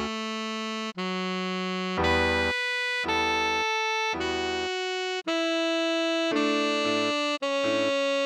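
Tenor saxophone playing a pop melody slowly, one held note at a time, each about a second long with short breaks between them, over keyboard chords.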